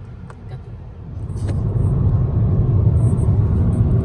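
Car driving at road speed, heard from inside the cabin: a steady low rumble of tyre and road noise that grows much louder about a second in.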